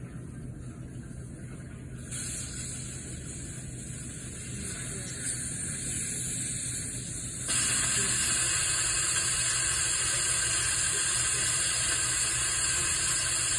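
Compressed air hissing steadily through a venturi-type vacuum coolant refill tool as it pulls a vacuum on the car's cooling system. The hiss grows louder about two seconds in and again, more sharply, about halfway through.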